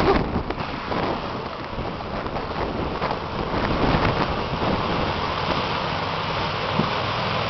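Pickup truck driving through a deep puddle, its tyres throwing up a steady rushing spray of water that grows a little louder about three seconds in.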